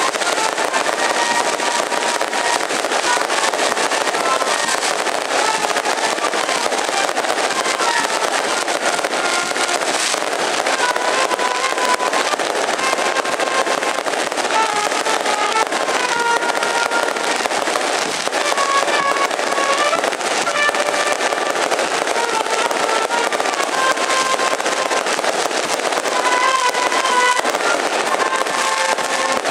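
A long string of firecrackers crackling and banging without pause, while a wind band plays a melody over the noise.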